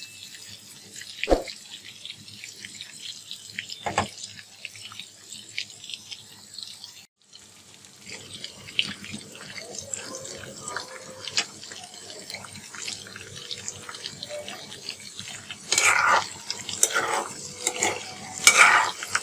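Chicken leg pieces deep-frying in hot oil in a karahi: a steady bubbling sizzle. Two knocks in the first few seconds, and louder bursts of scraping and splashing near the end as a steel ladle stirs the pieces.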